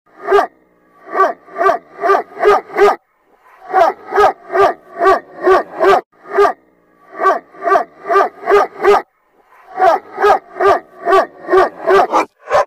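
A dog's barking played in reverse: each bark swells up and cuts off sharply, coming in quick runs of several barks about two or three a second, with short pauses between the runs.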